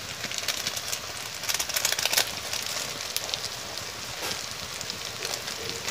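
Duck meat with ginger-garlic paste and spices sizzling and crackling in hot oil in an iron kadhai, with a louder spell of crackling about one and a half to two seconds in.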